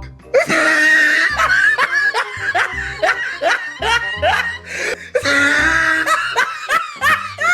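A person laughing loudly in a fast run of short rising 'ha' sounds, over background music with a steady bass line.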